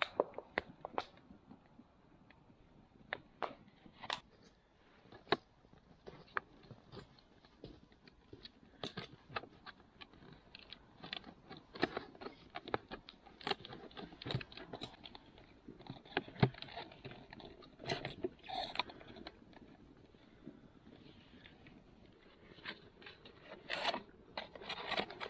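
Thin plastic drinks bottle crinkling and clicking as it is handled and cord is tied onto it to make a bottle trap: irregular sharp clicks and scrapes, busier in the second half.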